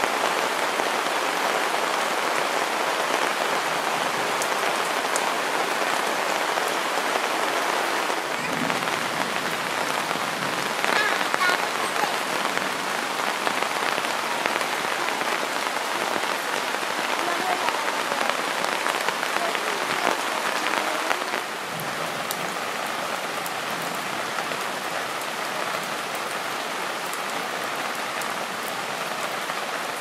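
Steady, heavy rain falling on leaves and splashing into a puddle; the downpour drops a little in level about two-thirds of the way through.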